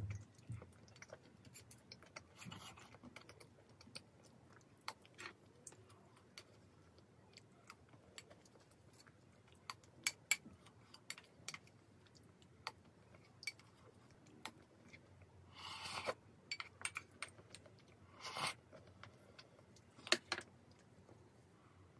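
Eating sounds: scattered light clicks of a wooden spoon and chopsticks against ceramic bowls, with soft chewing. Two short slurps of ramyeon broth come about three quarters of the way in.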